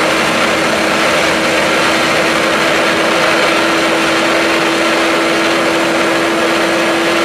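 Onboard sound inside the Ack Attack motorcycle streamliner at full speed: its twin turbocharged Suzuki Hayabusa engines running hard under a dense rush of wind noise, with one steady engine tone that holds its pitch.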